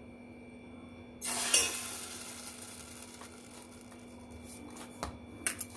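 Steel kitchenware and a glass bowl being handled: a sudden clatter and scrape about a second in that fades over a second or so, then a few light knocks near the end.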